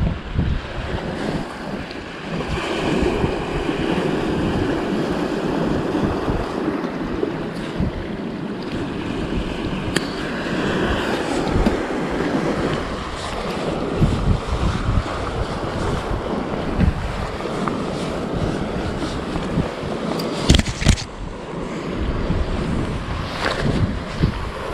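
Wind buffeting the microphone over small waves washing against rocks, a steady rushing noise with gusty rumbling. A few brief clicks sound near the middle and near the end.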